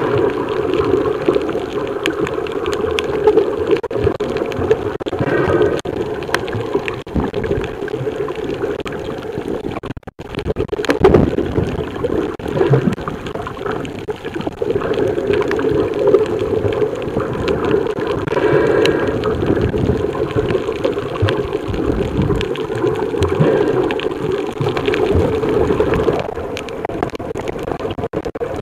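Muffled underwater water noise picked up by a camera in a waterproof housing as it moves through the water, a steady gurgling rush with scattered faint clicks and a brief drop-out about ten seconds in.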